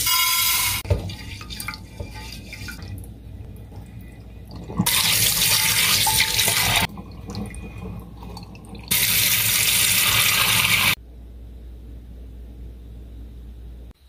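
Tap water running into a glass baking dish in a stainless-steel sink to rinse rice, in two runs of about two seconds each, with rice and water swished by hand in between. A short loud pour comes right at the start.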